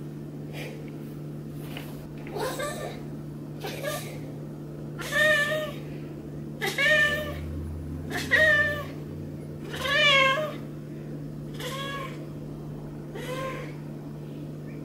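Maine Coon cat meowing repeatedly, about eight short meows a second or two apart, each rising then falling in pitch; the four in the middle are the loudest.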